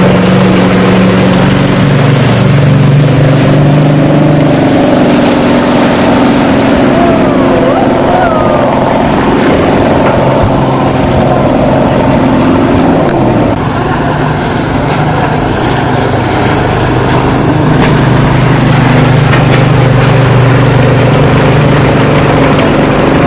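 Inboard motorboat engine running hard at speed, heard from aboard with wind and water rushing. The engine note dips about halfway through, then settles back to a steady run.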